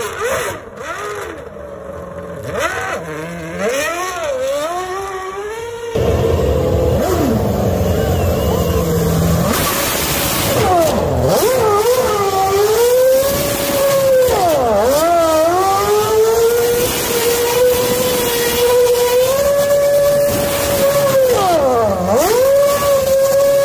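Red Bull RB8 Formula 1 car's Renault V8 revving hard during donuts. The revs swoop down and climb back several times and are held high and steady while the rear wheels spin. The sound gets abruptly louder and closer about six seconds in.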